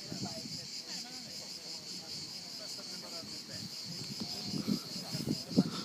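Steady, high-pitched chorus of insects shrilling, with a fine, fast pulse.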